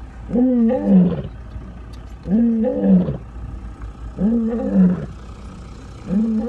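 Lion roaring in a regular series, one deep call about every two seconds, each rising, wavering and then dropping.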